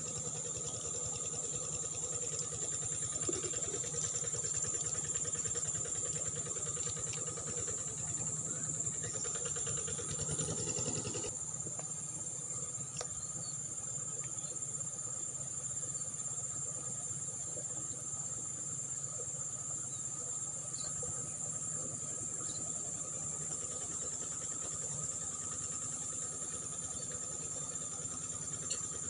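Steady, high-pitched chirring of crickets, unbroken throughout. For about the first eleven seconds a rushing hiss lies under it and then cuts off suddenly.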